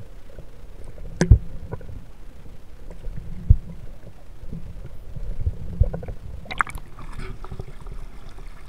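Muffled underwater rumble and gurgling picked up by a camera held under water, with a few dull knocks about a second, three and a half, and six seconds in. A short crackling splash comes near the end as the camera breaks toward the surface.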